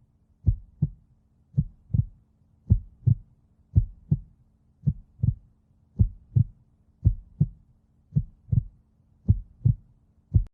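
Heartbeat sound effect: slow, steady lub-dub double thumps, about one beat a second, over a faint low hum.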